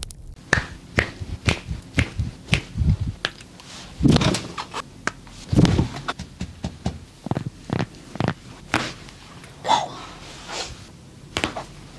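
Bone-cracking massage: a quick, uneven run of sharp cracks and taps from hands working the body, with two heavier thumps, about four seconds in and again near six.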